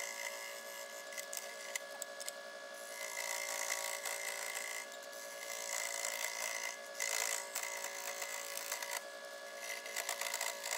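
Scroll saw cutting through a small pine workpiece: a steady buzz from the reciprocating blade, with a rasping sawing noise that swells and eases a few times as the wood is fed. It sounds thin, with no low hum.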